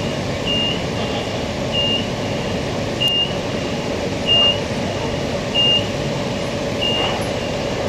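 A Queensland Rail electric multiple unit stands with its doors open, its onboard equipment giving a steady hum. Over it a short, high electronic beep repeats about every 1.2 seconds.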